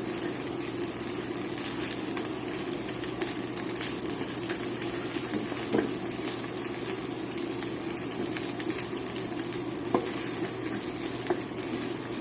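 Fried rice with egg and Spam sizzling steadily in an oiled pan while it is stirred, with occasional light clicks and scrapes of the utensil against the pan.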